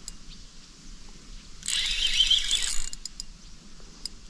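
Spinning reel being cranked to wind in a hooked fish, a small catfish: one whirring run of the reel gears for about a second and a half in the middle, its pitch wavering with the cranking speed.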